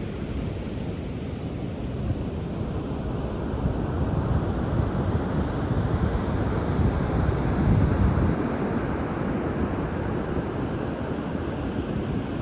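Wind buffeting the microphone: a steady low rumble that swells louder about two-thirds of the way through.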